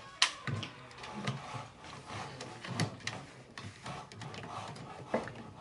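Irregular sharp knocks and clicks of wooden parts and clamps being handled during a glue-up, over a low rustle; the sharpest knocks come about a quarter second in, near three seconds and after five seconds.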